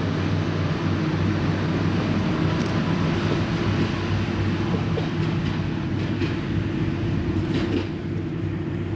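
Diesel railcar running steadily, its engine giving a low, even hum.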